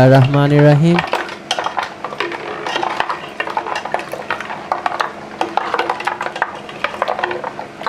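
Metal spoon stirring ice into milk and soda in a steel pot, making rapid, irregular clinks and scrapes.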